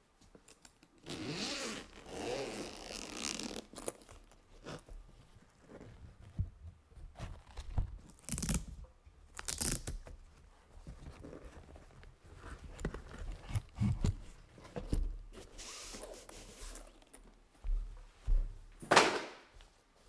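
Several separate scraping, rustling swishes with scattered low knocks between them, the longest lasting about two and a half seconds and the loudest near the end: handling noise rather than a steady run of keystrokes.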